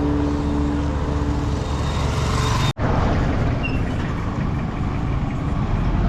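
Road vehicle and traffic noise: a steady low engine and road rumble, with a held engine tone for the first second and a half. The sound cuts out for an instant a little under halfway through.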